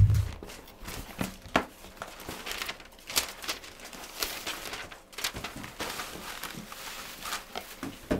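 Wig packaging crinkling and rustling as a wig is unpacked and handled, with scattered sharp crackles. A loud, dull bump comes right at the start.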